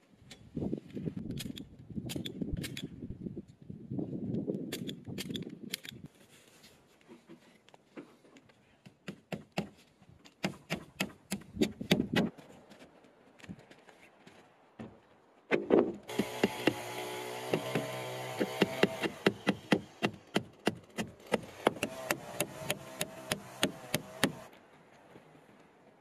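Hammering or nailing on wooden roof battens: sharp knocks, some in quick runs of several strikes. Partway through, a steady machine hum starts beneath the strikes and stops shortly before the end.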